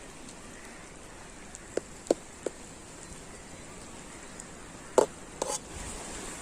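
Chicken curry masala sizzling steadily in the cooking pot, broken by sharp knocks: three close together about two seconds in and two more around five seconds.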